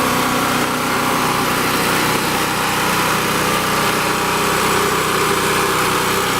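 Champion 3500-watt portable generator's 196cc single-cylinder engine running at a steady, even speed, freshly started on the first pull after sitting unused for about two months.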